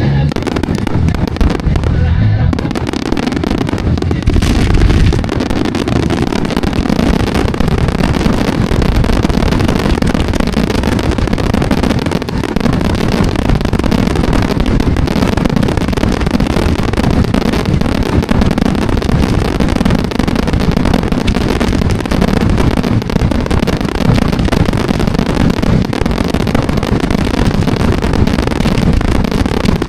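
Fireworks going off in a dense, continuous barrage of bangs and crackles, with a heavier low boom about four seconds in.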